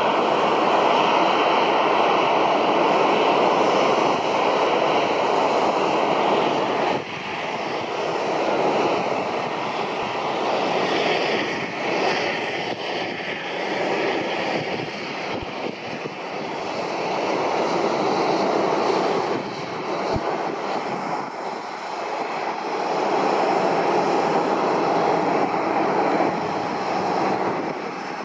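Twin rear-mounted General Electric CF34 turbofans of a Mitsubishi CRJ-702ER regional jet at takeoff power, as the airliner rolls down the runway and climbs away: a steady jet noise that eases about seven seconds in and swells again in the second half.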